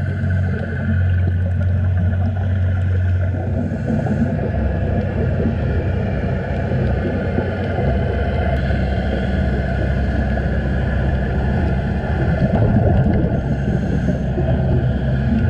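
Underwater ambience recorded through a diving camera: a steady, loud low rumble, with faint brief hissing about four seconds in and again near the end.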